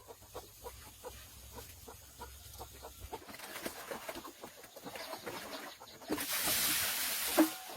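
Chickens clucking with scattered short ticks, then a loud rustling burst for the last second and a half, ending in a thump.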